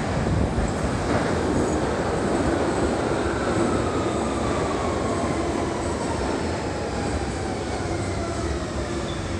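London Underground Central Line 1992 Stock train running into the platform and slowing, its motor whine falling steadily in pitch over the steady noise of wheels on track.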